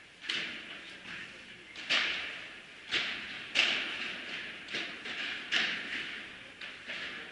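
Padel rally: sharp pops of the ball struck back and forth by the rackets, about one a second, each echoing briefly in a large hall.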